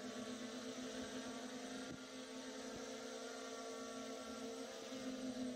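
Quadcopter's electric motors and propellers buzzing steadily in flight, a hum of several held tones that waver slightly in pitch.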